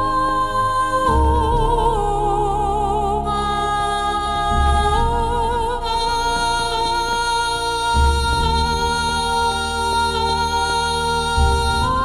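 Slow background music: a held, wavering melody line over long sustained bass notes that change about every three to four seconds.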